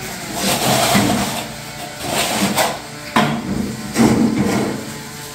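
Shovel and metal levelling bar scraping through a sand-and-cement mix being spread over a floor, giving a string of irregular scrapes and scuffs.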